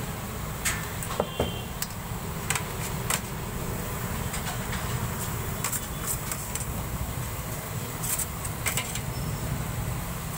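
Scattered light taps and clinks of a metal spoon against a steel tray and counter while a chicken shawarma roll is filled, over a steady low rumble of street traffic.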